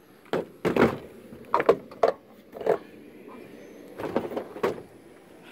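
Handling noise from someone moving about with a removed plastic door trim panel: about eight short, irregular knocks and scuffs.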